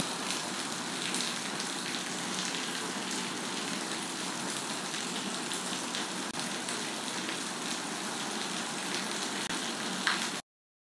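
Thick karakka lehyam paste of jaggery and ghee cooking in a pan, giving a steady sizzling hiss with faint crackles. It cuts off abruptly about ten seconds in.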